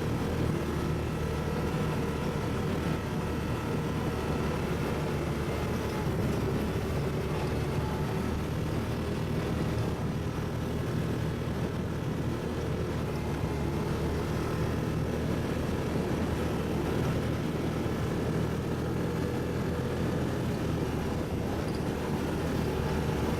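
ATV engine running steadily at an even speed, a constant low drone with no revving.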